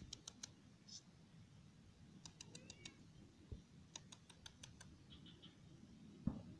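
Near silence, with a few short runs of faint rapid clicks and one soft thump near the end.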